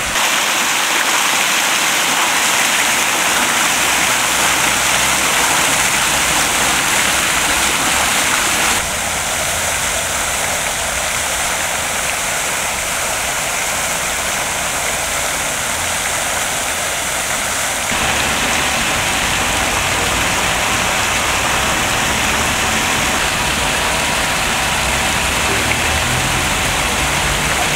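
Fountain water splashing steadily: a tall jet falling back into its basin, then water spilling in sheets over the stone rim of a round sculpture fountain. The rushing changes abruptly twice along the way.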